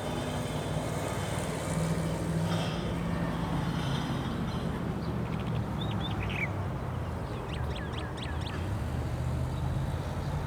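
Steady low rumble of a vehicle engine, with a few short high bird chirps a little past halfway.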